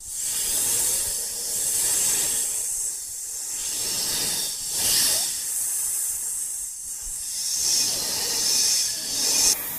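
A continuous hissing noise, mostly high in pitch, that swells and eases several times before dropping off sharply near the end.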